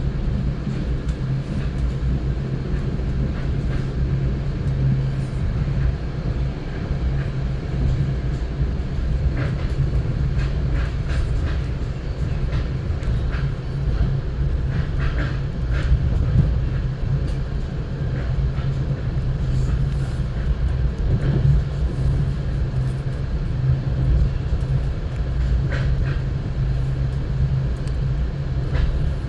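Train in motion: a steady rumble with a constant low hum and scattered light clicks.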